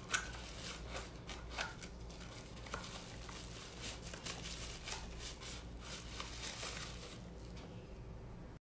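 Clear plastic packaging crinkling and rustling as it is handled, in quick irregular crackles that die away about seven seconds in.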